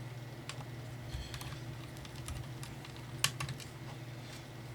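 Scattered small clicks and taps of a screwdriver and screws on a Dell E6420 laptop's base as its bottom screws are taken out, with a quick cluster of clicks about three seconds in, over a steady low hum.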